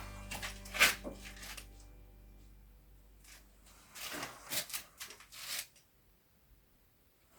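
Background music fading out, then a sharp hard knock about a second in and a cluster of scraping knocks a few seconds later: heavy building material, a timber wall plate or stones, being shifted on a stone wall.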